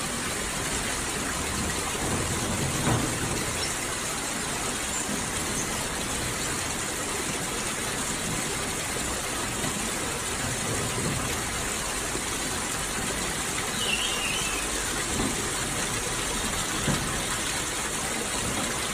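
Steady rush of running water, with a brief high squeak from a squirrel monkey about fourteen seconds in.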